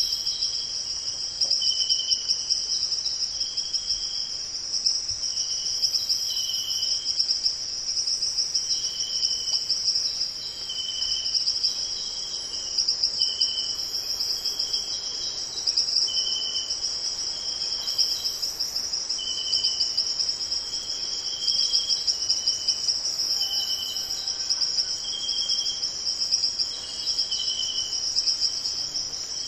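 Insect chorus: a continuous high, finely pulsing trill, with short chirps repeating about once a second over it.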